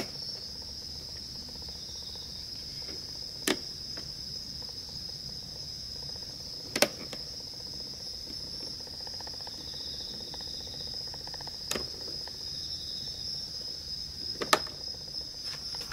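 A steady, high-pitched trill of night insects, with a few sharp clicks a few seconds apart.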